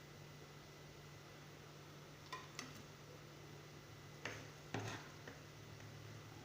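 A few light clicks and knocks of a cooking pot and serving plate being handled, two close together a little over two seconds in and two more around four to five seconds in, over a steady low hum.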